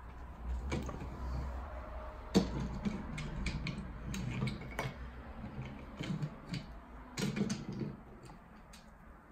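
Irregular light clicks and knocks of toy vehicles and wooden pieces being handled and pushed along the wooden track of a KidKraft train table.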